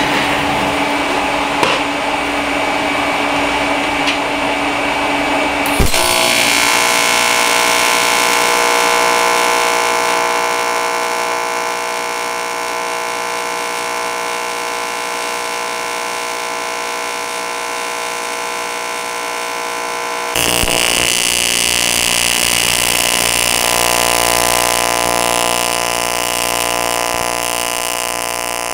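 AC TIG welding arc on aluminum buzzing steadily. It strikes suddenly about six seconds in, after a steady whir, and its tone shifts abruptly and brightens about two-thirds of the way through.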